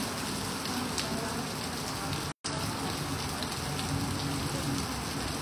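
Heavy rain pouring onto a flooded street, a steady dense hiss of drops on standing water. The sound cuts out for an instant about halfway through.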